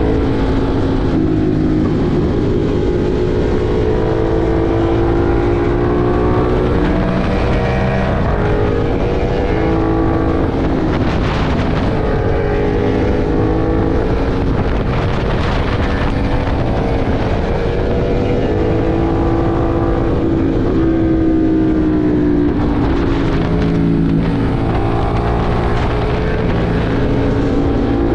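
Ducati Monster 1200 R's L-twin engine running hard on the move, its pitch repeatedly climbing and then dropping as the bike accelerates and shifts, with wind rushing over the microphone.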